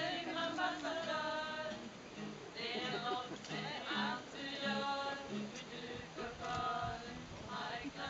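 A small group of men and women singing together to an acoustic guitar accompaniment.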